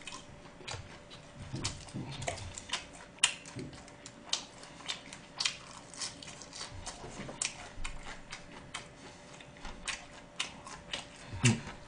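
Close-miked chewing of gwamegi, chewy semi-dried fish: irregular wet mouth clicks and smacks, several a second.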